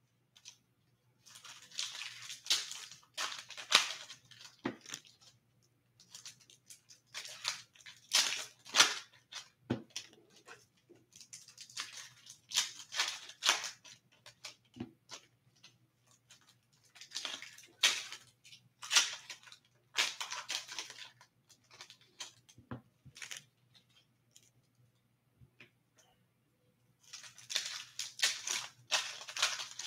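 Hockey card packs and cards handled by hand: foil pack wrappers crinkling and tearing, and cards sliding against each other, in about five bursts of rustling with short pauses between.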